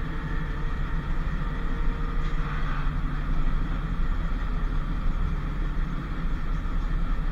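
Historic tram, a motor car pulling a trailer, running along its rails with a steady low rumble of wheels and running gear.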